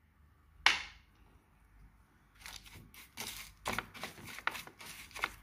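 A single sharp crack about a second in, then a metal spoon stirring crushed clay powder and grit in a glass bowl, with irregular scraping and clinking against the glass.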